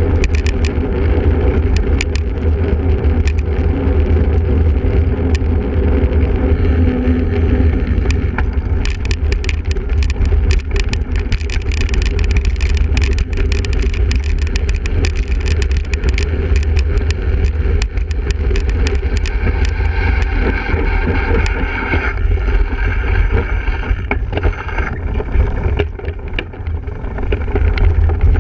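Single-speed cyclocross bike ridden hard over rough ground: a steady low rumble with frequent rattling clicks. A higher hum joins for a few seconds past the two-thirds mark.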